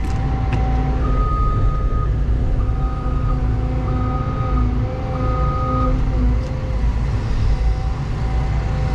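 Diesel engine of a Cat earthmoving machine working under load, a steady heavy rumble, with steady whining tones that switch on and off every second or so for the first several seconds.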